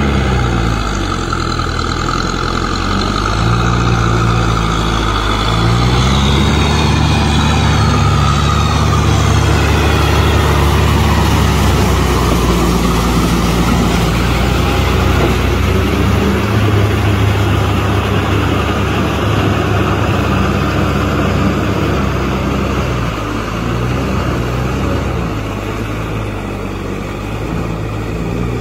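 Kubota M6040SU tractor's diesel engine running under load while driving a rotavator through flooded mud, its pitch dipping and rising a few times over a steady rush of noise.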